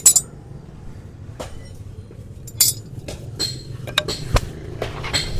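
Hoof-trimming tools cutting and scraping a horse's hoof: irregular sharp clicks and short scrapes, about seven in all, the loudest right at the start.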